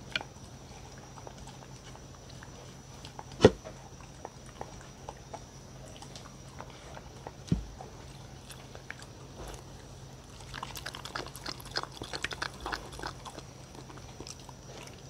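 A dog licking an empty wooden bowl, with wet tongue clicks against the wood. A single sharp knock about three and a half seconds in is the loudest sound, with a softer thump about seven and a half seconds in. A quick run of licks comes from about ten to thirteen seconds in.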